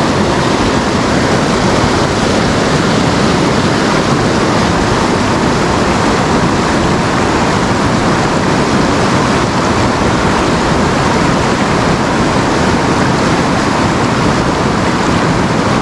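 Loud, steady rush of a fast river running high after rain.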